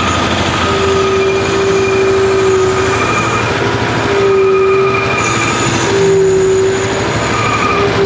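New Holland skid steer running hard as it drives and raises its loaded bucket, with a steady whine that comes and goes several times over the engine noise.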